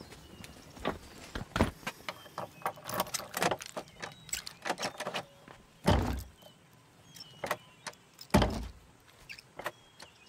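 Footsteps and small clicks and rattles of a woman handling something at a cottage's front door, with two heavier thumps about six and eight and a half seconds in.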